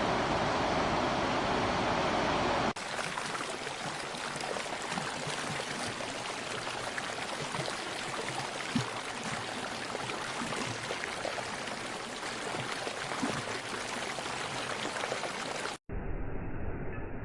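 Flowing water of a stream or waterfall. It starts as a steady, denser roar, then a few seconds in cuts to lighter rushing water with small splashes. Near the end there is a brief dropout, followed by a more muffled rumble.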